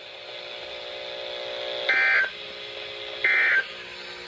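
Emergency Alert System end-of-message SAME data bursts from a NOAA weather radio's speaker: two short, harsh digital buzzes about a second and a half apart, over a faint steady hum. They mark the end of the severe thunderstorm warning just broadcast.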